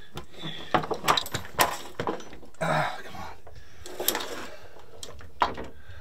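Metal clicks and clunks from a hand hydraulic crimping tool being pumped and handled while it crimps a lug onto a heavy battery cable. The knocks are irregular, a cluster of them in the first two seconds and a few spaced out later.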